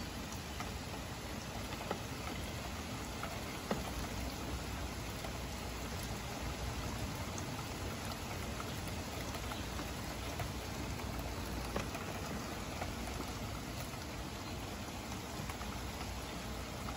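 Heavy thunderstorm rain falling steadily: a dense, even hiss with scattered sharp ticks of drops striking.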